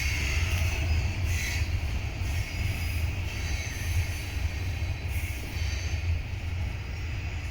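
Short freight train of cement cars rolling past, its wheels on the rails making a steady low rumble with a faint high squeal that fades after the first couple of seconds.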